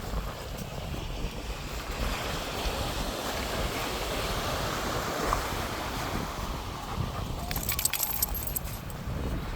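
Wind buffeting the microphone over the steady wash of surf, with a short run of light metallic jingling clicks near the end.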